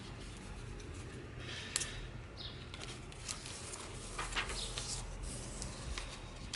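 Soft paper rustling with a few light taps and scratches: pages and inserts of a handmade paper journal being handled and turned.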